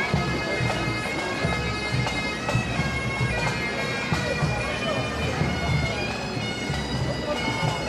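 Bagpipes playing a tune over their steady drones, with a low regular drum beat underneath.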